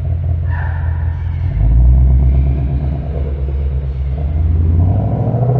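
2025 Ford Mustang GT's 5.0-litre V8 rumbling through its exhaust while driving. The engine note drops about a second and a half in, gets louder for a moment, then rises again near the end.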